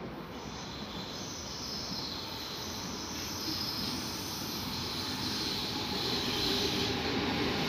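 Red regional electric multiple-unit train running along a station track, its rolling noise growing steadily louder as it comes nearer. A high hiss from the wheels on the rails rides over it.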